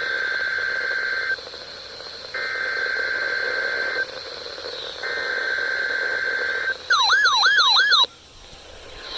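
EAS digital header (SAME data burst) from a weather radio broadcast, heard through a radio's speaker: three buzzy, steady two-tone bursts of about a second and a half each, a second apart. They mark the start of an emergency alert test. Then comes about a second of a fast-warbling electronic alarm tone, about four warbles a second, which stops suddenly.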